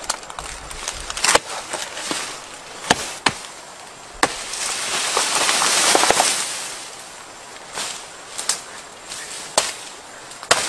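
Machete chopping into a banana plant's soft trunk: several sharp strikes, then a long rustling crash of leaves about halfway through as the plant falls, and a few more chops near the end.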